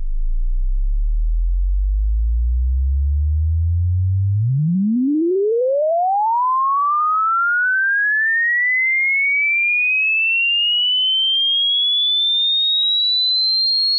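Hearing-test frequency sweep: a single pure sine tone rising in pitch. It starts as a deep hum, climbs quickly from about a third of the way in to about halfway, then keeps rising more slowly to a thin high whistle.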